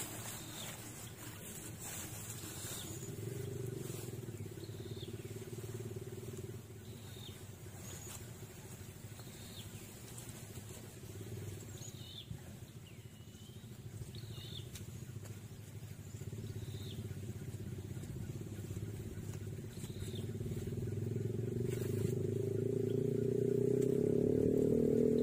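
A small engine running steadily, growing louder over the last few seconds, with faint high chirps recurring every second or two.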